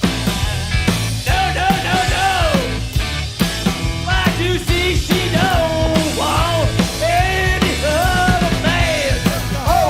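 Rock band playing live with drums, bass and electric guitar, and a melody line over them.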